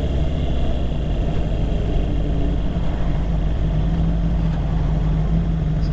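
Motorcycle engine running steadily at an even, low pitch.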